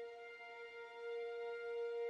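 Soft ambient background music: a single held chord that swells slightly about a second in.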